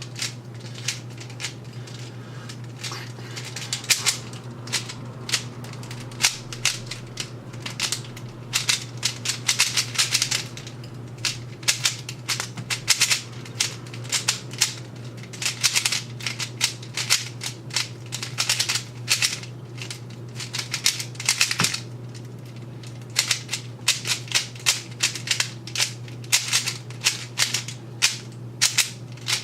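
Plastic Rubik's Cube being turned fast by hand during a solve: its layers clack and click in quick, irregular runs, broken by short pauses.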